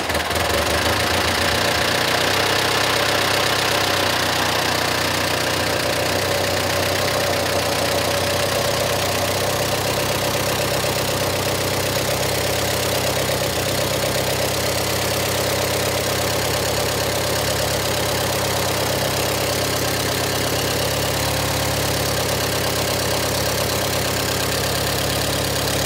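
Banger race car's carburettored engine idling steadily, freshly started.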